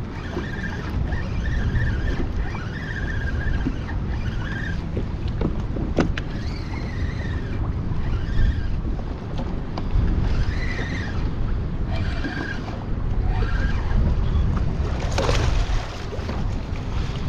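Steady wind rumble on the microphone over choppy water, with the intermittent whir of a Daiwa BG MQ spinning reel being cranked against a hooked snook. Near the end comes a louder rush of splashing as the fish thrashes at the surface beside the kayak.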